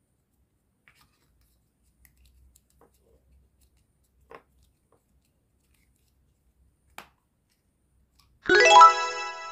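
Faint, scattered clicks and taps of a plastic toy dumpling mold being handled and pressed onto play-dough. About a second before the end, a loud, bright burst of music with many ringing tones starts suddenly and fades out.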